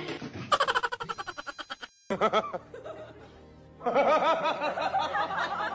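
A person laughing in short rapid snickers, with a brief cut to silence about two seconds in and a longer run of snickering from about four seconds in.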